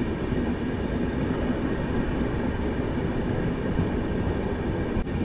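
Steady running noise of a passenger express train at speed: the coach's wheels rumbling on the rails.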